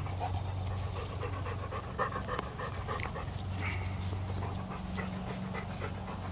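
Dog panting close by, quick breaths over a steady low hum.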